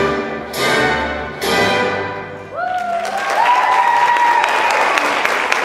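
Orchestral music ending on a few loud, repeated full-orchestra chords. About halfway through, the music stops and the audience breaks into applause.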